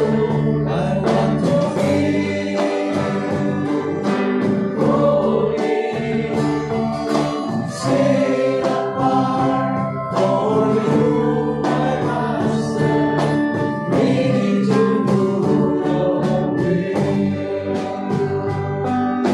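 Live praise-and-worship band playing a gospel song with sung vocals over electric and acoustic guitars and keyboard, with a steady beat.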